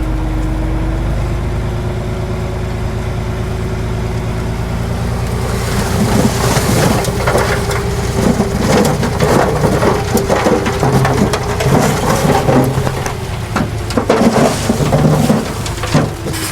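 Heavy diesel earthmoving machine running with a steady engine drone, then from about six seconds in a dense crackling and crunching of soil and stones tumbling and being pushed over the machine's drone.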